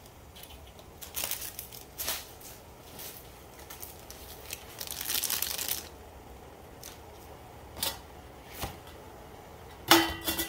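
Plastic instant-noodle packaging crinkling and tearing in several short bursts as it is handled and opened, with a sharp click near the end.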